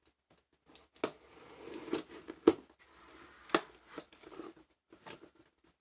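A shipping box being opened and its packaging handled: crinkling and tearing, with a few sharp knocks, the loudest about two and a half seconds in.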